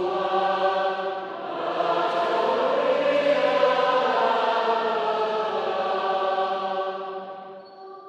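A female soloist singing long, sustained notes with a choir, fading down near the end.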